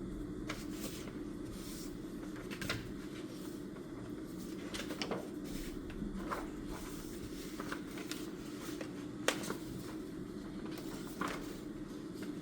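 Scattered light clicks and small knocks from desk study work (pen, paper and objects handled on a desk), over a steady low room hum.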